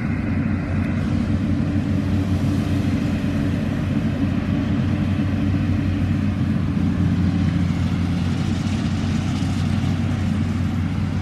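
Yanmar 850 rice combine harvester's diesel engine running with a steady low hum as the machine works across the paddy.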